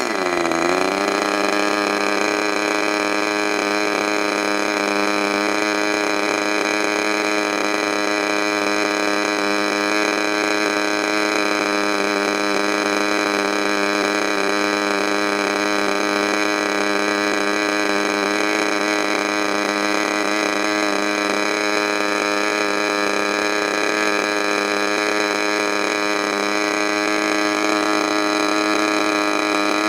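Small model-aircraft glow-fuel engine running steadily and loudly. Its pitch drops sharply in the first half-second, then holds level, with a slight rise near the end.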